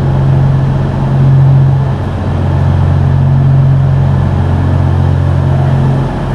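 Commuter train standing at the platform, its engine and under-floor machinery running with a steady low hum, dipping briefly about two seconds in and again near the end.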